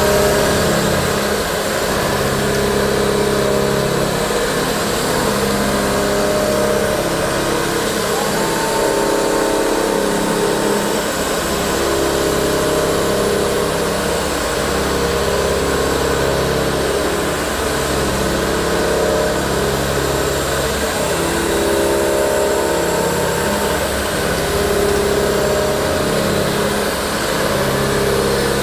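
Olivetti CNC horizontal boring mill running: a steady machine hum with several held tones that shift in pitch and level every few seconds.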